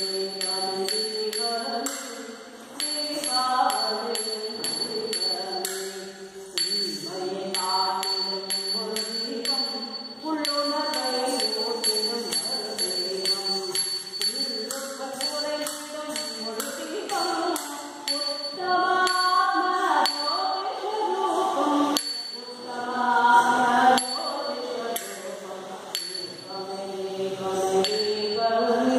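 A song with a sung melody over a steady beat of sharp percussion strokes.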